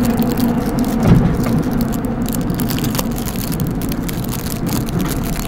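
Seoul Metro Line 5 subway train running, heard from inside the carriage: a steady rumble with rattling and scraping, and a low hum that fades about a second in, near a short bump.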